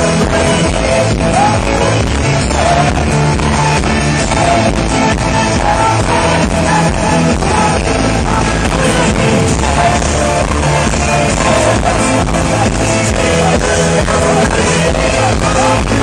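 Live amplified dance-pop music with a steady beat and a man singing over it, heard loud through the venue's sound system from within the crowd.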